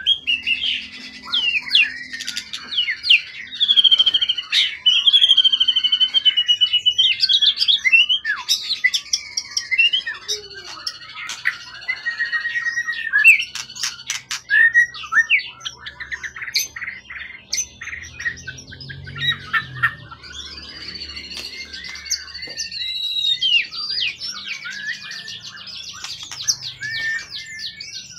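A songbird singing without a break: a long, varied song of clear whistles, rapid chattering trills and harsher squawk-like notes.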